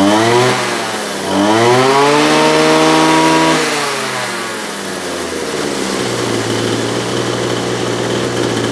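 Kawasaki TJ27 brush cutter's 27 cc two-stroke engine being revved with the throttle. It drops from a rev just as the sound opens, is revved up again about a second in and held for about two seconds, then winds down to a steady, smooth idle by about six seconds in.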